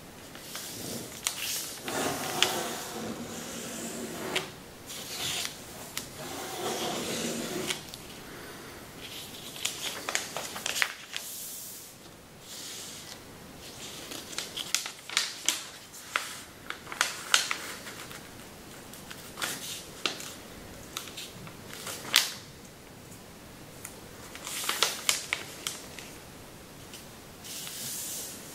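A large sheet of thin kami origami paper being folded by hand against a table: rustling as the sheet is lifted and slid, and sharp crackles as the creases are pressed flat. Longer rustles come in the first several seconds, then many short crackles.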